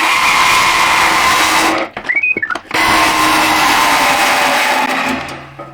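Power saw cutting through a rusted steel exhaust pipe, running steadily. It stops briefly about two seconds in, starts again, and winds down near the end.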